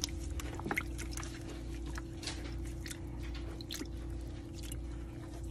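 Gloved hands rubbing and squeezing raw chicken pieces in a bowl of water with vinegar and lime, giving irregular wet squelches and small splashes over a steady low hum.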